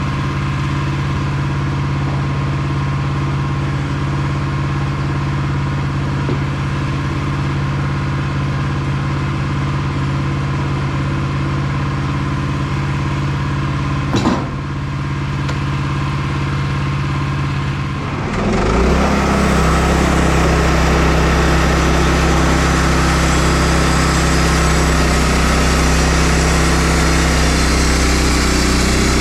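Portable band sawmill's gas engine idling steadily, with a single knock about 14 seconds in. About 18 seconds in it changes to a louder, fuller running with more hiss, as the mill is brought up to working speed.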